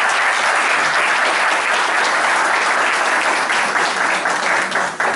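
Audience applauding, a dense steady clapping that thins to a few separate claps at the end.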